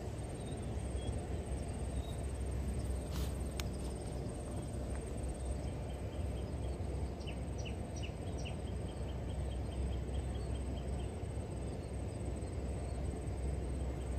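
Riverside outdoor ambience: a steady low rumble under a thin, high, pulsing insect trill. About three seconds in come two sharp clicks, and from about five seconds in a run of short high chirps repeats at about four a second for several seconds.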